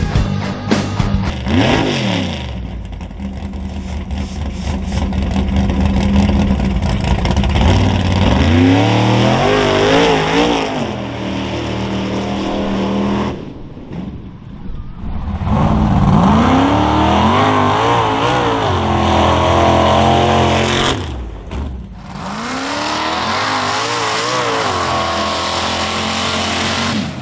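Modified mud-bog race trucks' engines revving hard as they race through a mud pit, the pitch climbing and falling in several long pulls. The sound drops out briefly twice, between runs.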